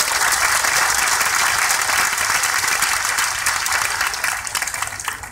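Crowd applauding, a dense patter of many hands clapping that tapers off near the end.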